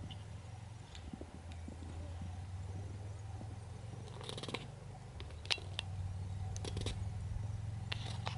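A horse's hooves cantering on sand footing: scattered thuds and clicks, with a denser cluster about four seconds in as it jumps a fence, over a steady low rumble.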